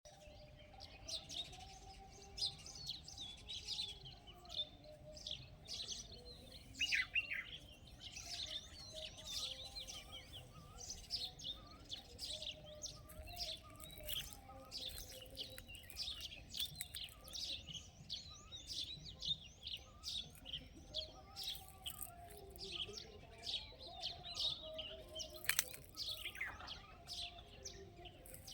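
Small birds chirping and twittering constantly, many rapid short high calls overlapping, with fainter lower warbling notes underneath.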